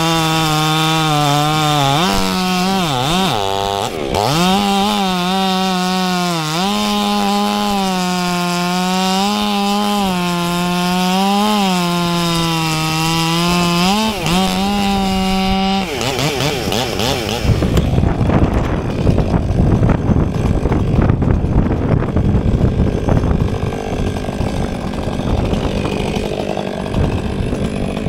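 Stihl MS 500i two-stroke chainsaw running at high revs while cutting a log, its pitch dipping and recovering several times as the chain bites into the wood. About 16 s in, the steady engine tone gives way to a rougher, noisier sound.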